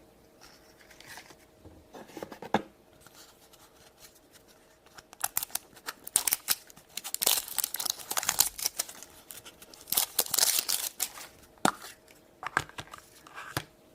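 Plastic blind-bag packaging being torn open and crinkled by hand, in irregular crackling bursts that are densest about halfway through.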